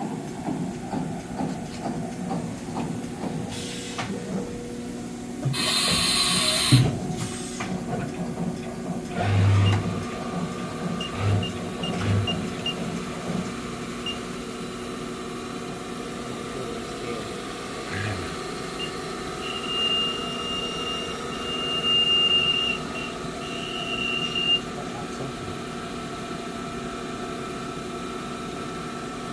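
Haas VF-2B CNC vertical machining center running under power: a steady machine hum with several dull thumps and a brief hiss about five seconds in. A high-pitched whine comes and goes near the middle.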